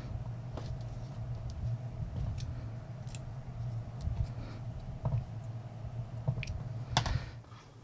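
Small scattered clicks and taps of metal parts and a small screwdriver as an aircon vacuum pump is put back together by hand, with a cluster of louder clicks about seven seconds in. A steady low hum runs underneath.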